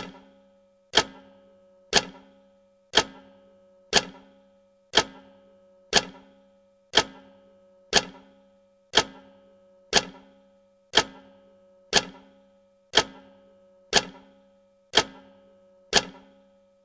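Countdown timer's tick sound effect: a sharp clock-like tick once a second, each with a short ringing tail.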